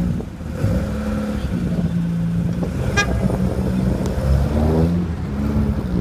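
Classic saloon car's engine accelerating as it pulls away, its pitch rising in steps through the gears, with one very short horn toot about halfway through.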